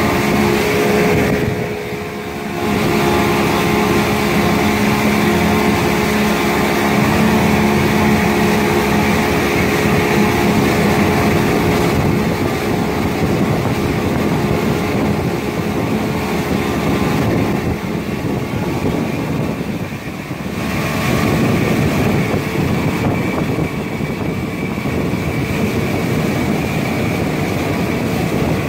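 Outboard motor running steadily at speed, pushing the boat through the water, with the rush of water from the wake. The sound dips briefly twice.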